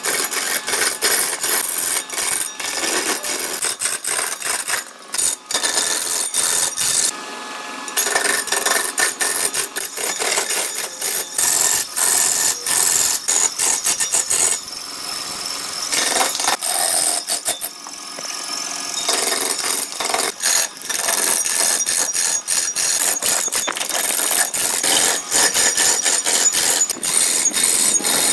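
A hand-held lathe gouge cutting into a large spinning log on a wood lathe: a continuous harsh scraping, rasping noise full of rapid irregular clicks as shavings tear off, dipping briefly a few times.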